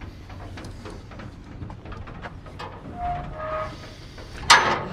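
Cattle moving in an aluminium livestock trailer: a low metallic rumble with scattered knocks, then a loud burst of banging and clattering near the end.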